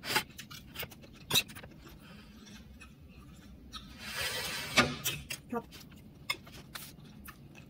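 Metal fork clicking and scraping against a plate of chopped vegetable salad as forkfuls are picked up and eaten, with quiet chewing between. A brief rustle about four seconds in, followed by the loudest clink.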